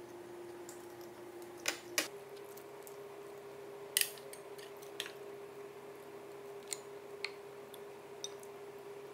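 Sharp, separate clicks and taps of wooden chopsticks and bamboo skewers against ceramic dishes, about seven in all, the loudest a couple of seconds in and again about four seconds in, over a steady background hum.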